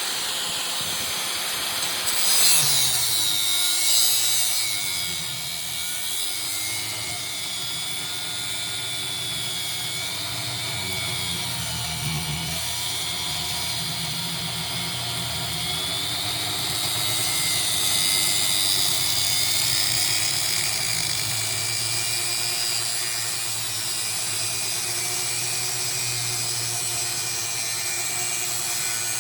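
Angle grinder running and cutting metal, its whine wavering up and down in pitch as the load changes, with two louder bursts a few seconds in.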